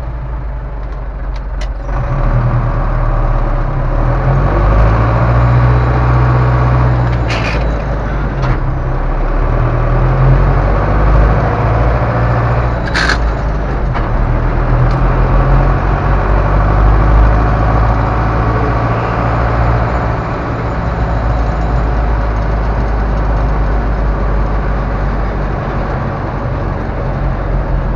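Ursus C-385 tractor's four-cylinder diesel engine running under load while driving, heard from inside the cab. It grows louder about two seconds in as it pulls harder. Two brief sharp noises come about a third and halfway through.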